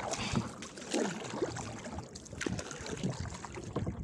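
Water splashing and trickling as a crab net line with a plastic-bottle float is hauled out of the sea over the side of a small wooden outrigger boat, with scattered light knocks of handling.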